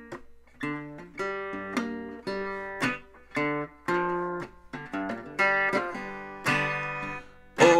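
Resonator guitar fingerpicked with a metal slide, playing a blues riff as an unaccompanied song intro. It plucks notes and short chords, about two a second, each left to ring.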